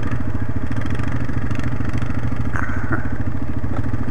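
Yamaha ATV engine running steadily as the quad crawls along a muddy trail, with a couple of light knocks of the machine jolting over the ground around the middle.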